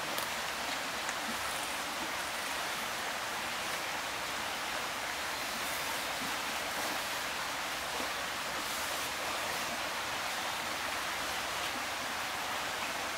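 Steady, even rushing of running water, with no distinct knocks or clicks.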